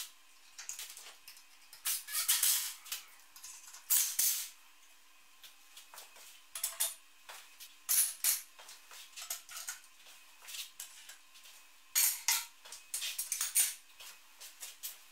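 Homemade steel F-clamps being hung on a wooden wall rack, clinking and knocking against the rack and each other in short clusters of clicks and clanks. A faint steady hum runs underneath.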